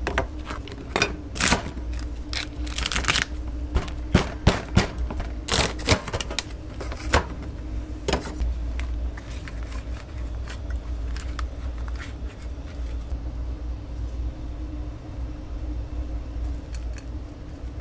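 Cleaver chopping through lobster shell and striking a stainless steel counter: a quick, irregular series of sharp knocks and cracks over the first half, then only a steady low hum.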